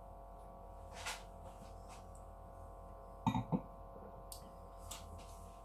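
Quiet room with a steady hum, broken by a faint tap about a second in and a short double knock a little past three seconds in.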